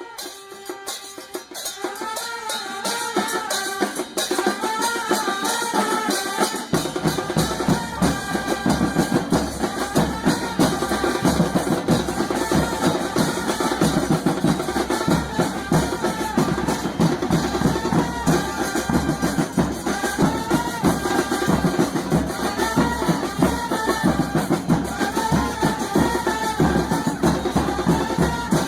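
Music with a repeating melody and percussion; a deep drum beat comes in about seven seconds in.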